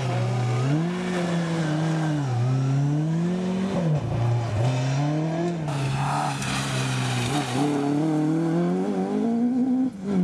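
Rally car engines revving hard, the pitch climbing and dropping again and again as the cars change gear through a stage. About six seconds in there is a rush of hiss from tyres on the wet road.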